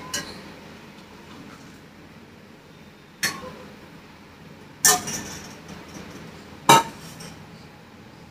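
Sharp metallic clinks of a steel saucepan and tea strainer knocking against a mug as green tea is strained: a quick double clink at first, then three single clinks a second or two apart.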